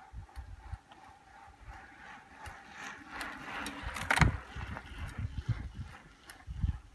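Wind buffeting the microphone in uneven low rumbles, with a hiss that swells about three seconds in and a sharp click about four seconds in.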